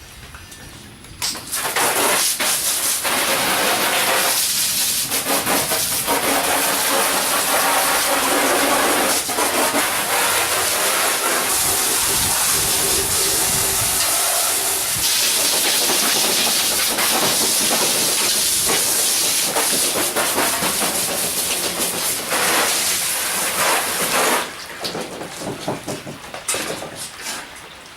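Diamond saw blade grinding into hard red porphyry on a copying saw, a loud steady hiss that starts about a second in and cuts off near the end, leaving quieter scraping.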